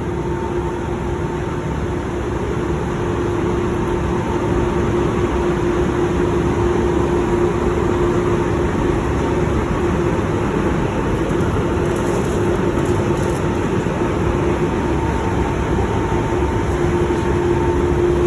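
Steady rush of moving air from a ventilation fan, with a steady low hum running under it and growing slightly louder over the first few seconds.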